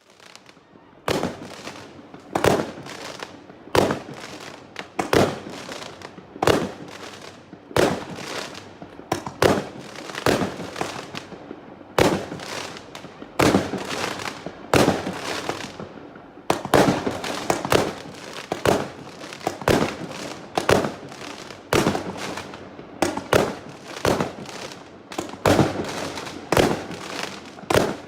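Firework cake firing a steady volley of shots, a sharp bang about every second and a half, with crackling between the bangs. The shots come closer together toward the end.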